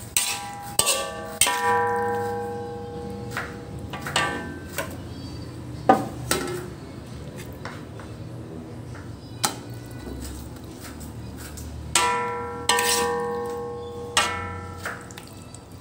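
Metal spatula stirring food in a pan and knocking against its rim and sides now and then. The harder knocks leave the pan ringing for about a second, with a cluster of strikes near the start and another about twelve seconds in.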